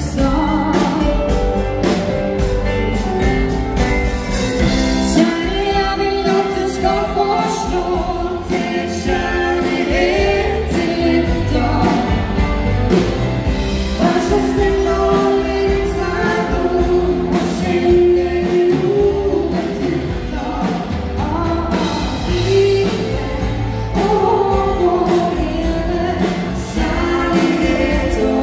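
Live dansband music played loud and without a break: a singer over keyboard, guitars and drums.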